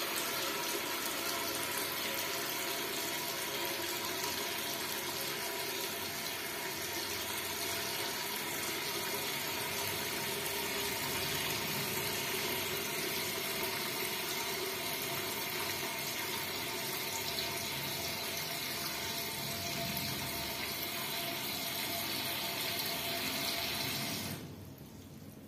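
Toilet cistern refilling through its float-operated fill valve: water hissing and splashing into the tank steadily, then cutting off sharply about a second before the end as the float closes the valve on its newly replaced rubber seal, so the water no longer runs on.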